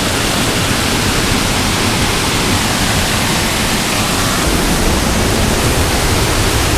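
Waterfall pouring over rocks into a fast mountain stream: a loud, steady rush of water.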